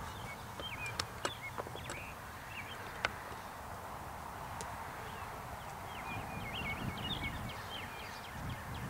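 Birds chirping in quick, short calls, thickest about six to seven seconds in, over a low steady wind rumble, with a few sharp clicks in the first three seconds.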